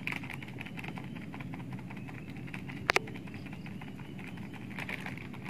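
Small kitchen knife cutting raw chilies and shallots into a small mortar bowl for sambal matah, with faint light taps and ticks; two sharp clicks in quick succession about three seconds in.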